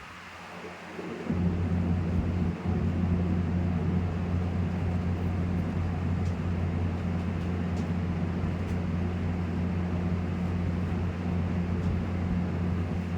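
A steady low mechanical hum that starts about a second in and then holds unchanged.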